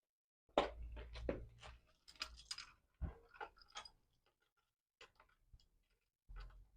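Clicks and knocks of a steel quick-release rack being handled and fitted onto a bicycle's seat post, a busy run of knocks in the first few seconds, then a few lighter clicks and one more knock near the end.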